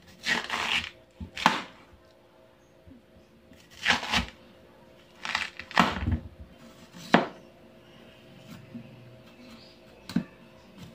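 Large kitchen knife cutting through a raw purple yam (ube) and striking a plastic cutting board: about seven separate chops at irregular intervals, the first a longer sawing stroke.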